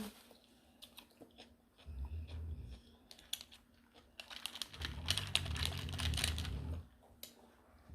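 Paper napkins rustling as they are handled close to the microphone, with scattered small clicks; louder stretches of rustling come about two seconds in and again from about five to seven seconds.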